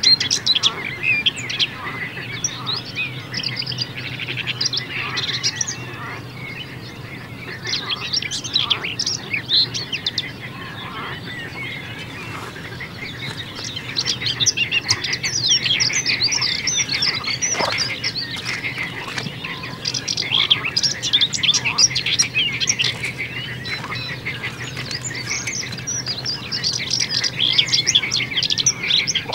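Dawn chorus of many small songbirds singing over one another: dense, overlapping chirps and trills that grow busier about halfway through. A faint steady low hum sits underneath.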